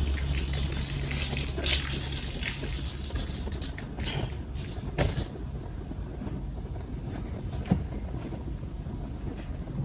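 Rustling handling noise with a few sharp clicks scattered through it and a low steady hum over the first few seconds.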